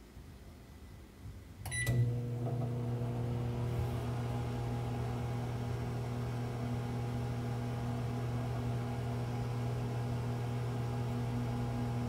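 Microwave oven starting up: a short beep and click about two seconds in, then the steady electrical hum and fan noise of the oven running.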